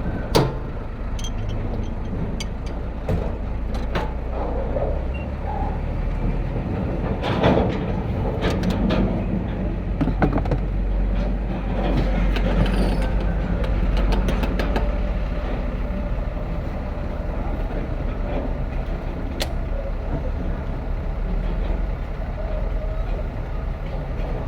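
Truck diesel engine running steadily with a low rumble, with scattered sharp metallic knocks, the loudest about half a second in and another about seven seconds in.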